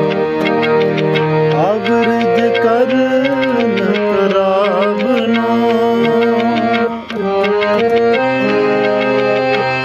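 Shabad kirtan music: a harmonium holding and moving between notes, with a tabla beat and a sung line that wavers and glides between notes.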